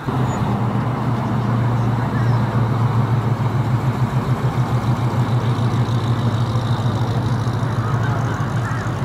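Classic muscle car's engine and exhaust running at low speed as it rolls slowly past, a loud low note with an even pulsing beat.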